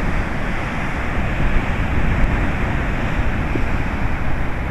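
Steady wind on the microphone mixed with the continuous wash of ocean surf breaking against a rocky sea cliff.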